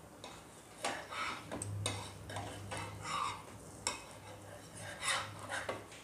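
A spatula scraping and tapping against a flat tawa griddle pan in a string of short, irregular strokes, working under a besan chila to loosen it for flipping.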